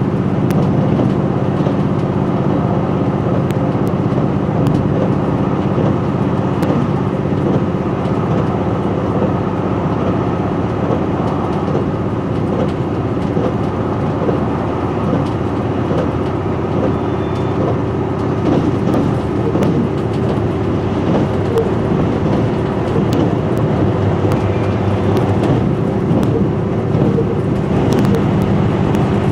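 Inside the cabin of a KiHa 261 series diesel railcar running along the line: a steady drone of engine and wheels on rail, with a constant low hum and a few faint clicks.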